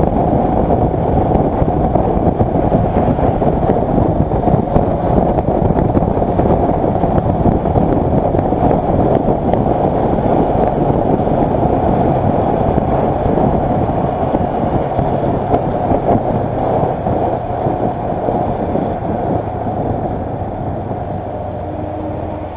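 Kawasaki Versys motorcycle on the move: steady wind rush over the camera microphone with the engine running beneath it. Near the end the wind eases as the bike slows and the engine's steady tone comes through more.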